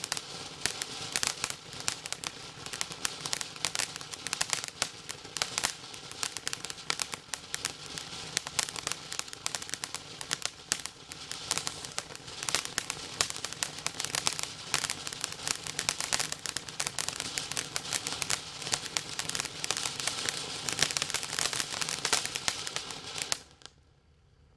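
Ground fountain firework spraying sparks with a dense, continuous crackle of sharp pops, which cuts off suddenly near the end as the fountain burns out.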